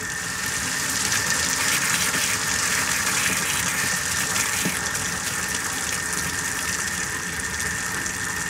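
Sink faucet running with air sputtering out along with the water, building up over the first second or so and then steady. It is air being purged from the plumbing after the water supply is turned back on, which is normal.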